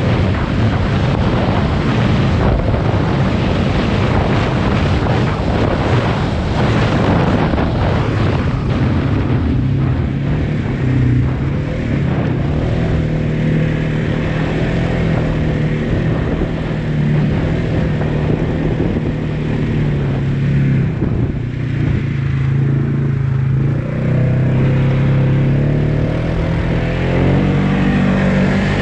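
Polaris Sportsman 570 ATV's single-cylinder engine running as the quad is ridden over rough field tracks. Heavy wind and jolting noise cover it for the first ten seconds or so, after which the engine's steady note stands out, rising near the end.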